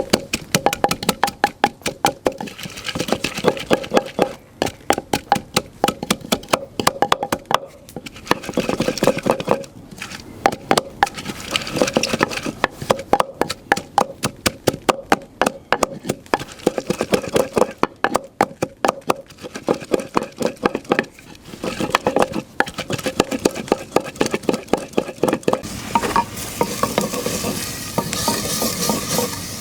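A pestle pounding garlic, ginger and chilies into a paste in a mortar: quick, repeated, ringing strikes in runs with short pauses. Near the end the sizzle of onions frying in oil takes over.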